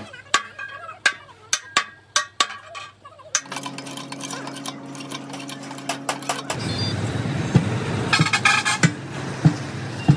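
Hammer blows on a steel wheel rim: a quick run of sharp metallic clinks over the first three seconds or so. A steady low hum follows, then more hammer strikes, with the metal ringing near the end.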